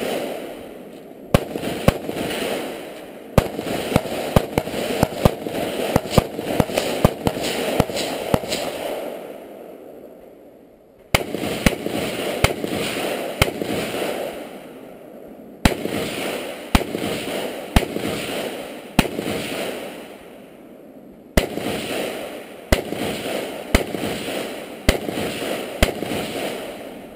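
Semi-automatic rifle shots fired in irregular strings, some in quick succession, each followed by an echo that dies away over a second or two. There are short pauses between strings, with a sharp shot restarting the firing after each.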